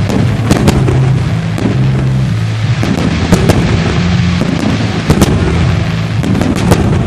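Aerial fireworks going off: a rapid, irregular string of sharp bangs and crackles.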